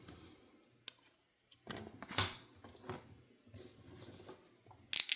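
Baseball cards and game pieces being handled on a tabletop: light swishes and taps, then a quick run of clicks near the end as dice are rolled.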